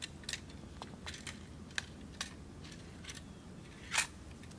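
Agawa Canyon BOREAL21 folding bow saw being folded down: a run of scattered light clicks and rattles from its parts, with one louder click about four seconds in.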